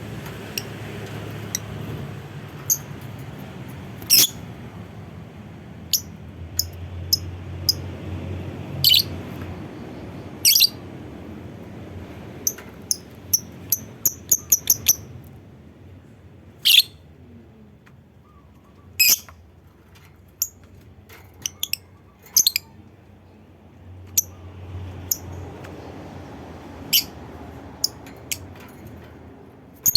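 Lovebird calling with short, sharp, high-pitched chirps and shrieks at irregular intervals, including a quick run of about six notes around the middle, over a steady low background noise.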